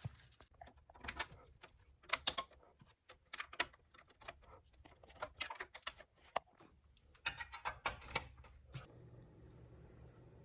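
Irregular clicks, knocks and rattles of hands working on a desktop computer's case and parts, plugging in cables and screwing things back in. The clicking stops about nine seconds in, leaving a faint low steady hum.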